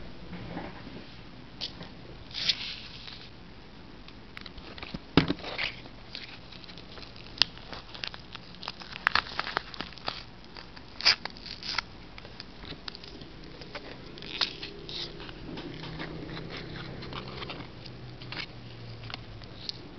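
Small paper Sea-Monkeys packet being handled and torn open by hand: scattered crinkles, crackles and sharp little clicks, irregular throughout.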